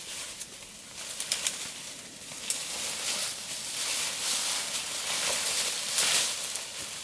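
Rustling and crackling of rhododendron branches and leaves being pushed through and handled, with many small sharp snaps and clicks scattered throughout.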